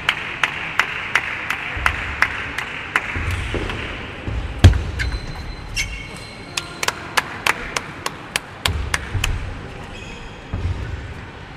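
Table tennis ball clicking off bats and table during rallies, about three clicks a second, with one heavier thud near the middle and brief squeaks in between, echoing in a large hall.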